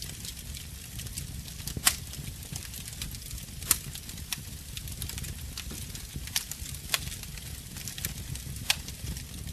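Campfire burning with a low steady rumble and sharp crackling pops every second or two.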